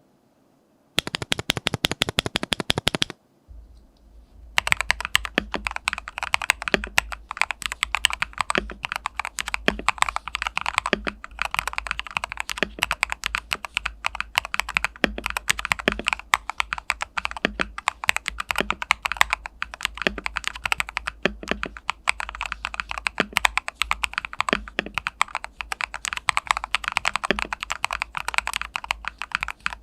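Mechanical keyboard with lubed and filmed Aflion Blue Sky linear switches being typed on. A quick, even run of key presses comes first, then a brief pause, then steady fast typing with a deeper stroke about once a second.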